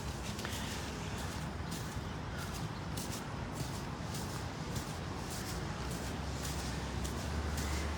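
Footsteps crunching on packed snow at a walking pace, about two steps a second, over a low steady rumble of city traffic that swells near the end.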